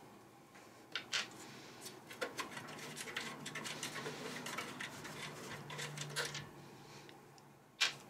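Faint clicks and scraping as finger-tight thumbscrews are turned out of the back panel of a Synology DS420j's metal case and set down on the desk, with a sharper click just before the end.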